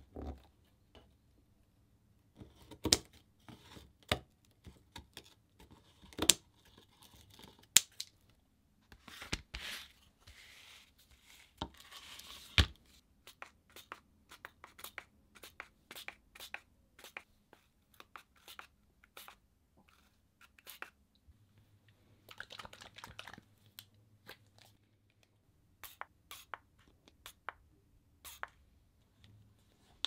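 Close-up sounds of mesh netting being handled on a painted journal page: rustling and crinkling in two longer stretches, about ten seconds in and again after twenty, with many sharp clicks and taps scattered throughout.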